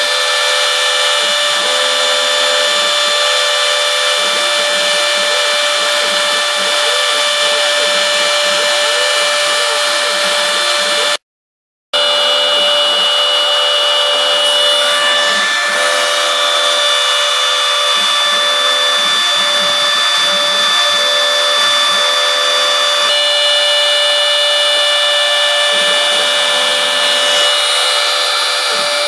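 CNC mill spindle running with a steady high whine over a hiss as the bit cuts hexagonal pockets in florist foam. The sound cuts out completely for under a second about eleven seconds in, then carries on.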